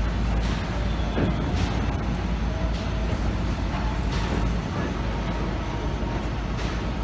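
Vehicle noise: a steady low rumble with a few faint clicks and knocks over it.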